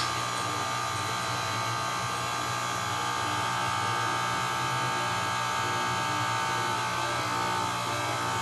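Electric pasta roller's motor running steadily with a buzzing hum while a sheet of noodle dough is fed through the rollers.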